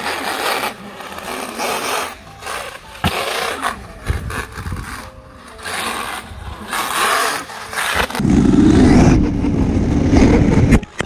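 Small electric RC buggy driving on concrete: its motor whine and tyres on the rough surface rise and fall with the throttle. About eight seconds in, a louder, deeper rumble takes over.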